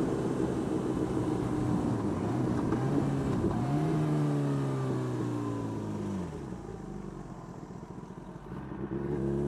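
Kawasaki ZX10R's inline-four engine under way: its pitch dips and climbs about three seconds in, then slides down as the bike slows and goes quieter for a few seconds, before rising again near the end as it accelerates.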